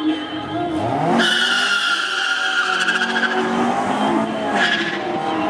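Drag-racing car launching off the line: the engine revs up about a second in, then runs at full throttle with the tyres squealing for grip on a slick track as it pulls away.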